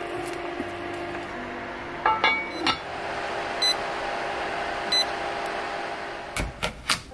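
Electric cooker's touch control panel beeping as its cooking time is set: short high beeps, two of them clearly apart about 3.7 and 5 seconds in. A few sharp knocks near the end.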